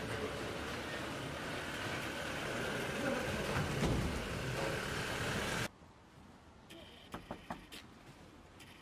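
A diesel van's engine and tyres passing close by on a street, swelling to its loudest about four seconds in. The sound cuts off abruptly near the end, leaving a quiet background with a few light clicks.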